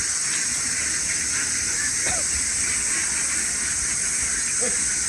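A steady high-pitched hiss of outdoor ambience with a low rumble, and two brief calls, about two seconds and four and a half seconds in.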